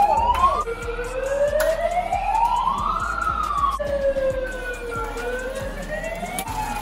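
Siren of a handheld Pyle megaphone wailing, its pitch sliding slowly up and down in sweeps of two to three seconds each.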